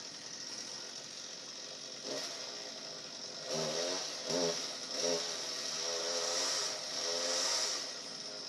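A distant chainsaw being revved in several short bursts, its pitch rising with each blip of the throttle, with a longer run near the end.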